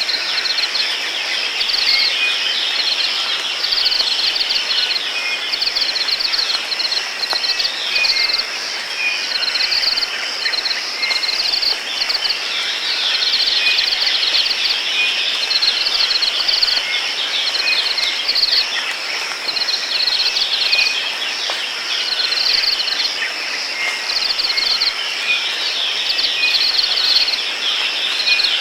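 Steady high-pitched insect drone with repeated pulsing chirps, and short bird chirps over it.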